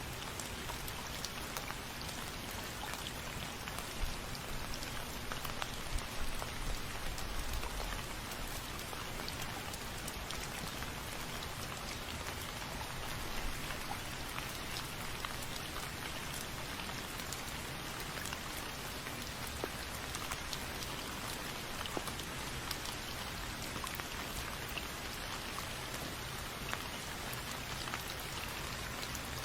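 Steady rain falling on a surface, an even hiss full of individual drop patters, with a few slightly heavier patches.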